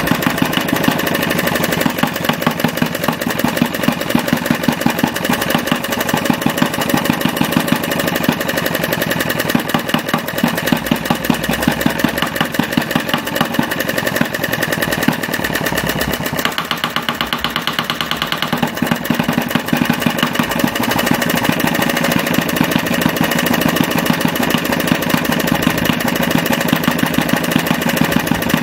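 16cc Retrol model diesel stationary engine, a single-cylinder compression-ignition engine with mechanical fuel injection, running steadily with a rapid, even firing beat. Its sound changes for a few seconds about two-thirds of the way through, then settles back.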